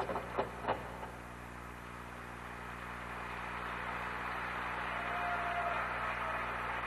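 Audience applauding: an even clatter of clapping that grows slowly louder, after a few sharp knocks in the first second.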